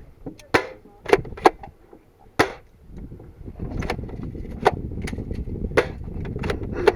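About nine sharp cracks at irregular intervals over a steady low rumble.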